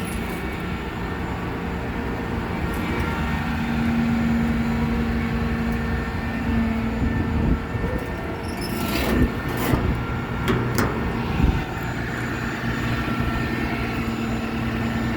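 2014 Dodge 5500 truck engine idling steadily, with a few sharp knocks and clicks about nine to eleven seconds in.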